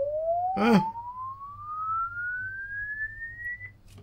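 Sine-wave frequency sweep played through the mixer to a speaker: a single pure tone gliding steadily upward in pitch and cutting off suddenly near the end, over a low mains hum. The tone comes through cleanly, so the channel under test passes audio.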